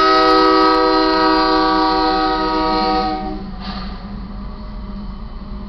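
Union Pacific AC44CWCTE diesel locomotive's air horn sounding one long, loud chord blast that cuts off about three and a half seconds in. After it, a steady low rumble from the train passing through the crossing.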